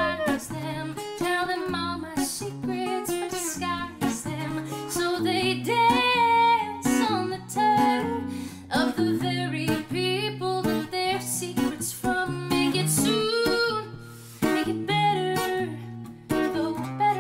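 A woman singing a ballad melody with long held notes, accompanied on acoustic guitar.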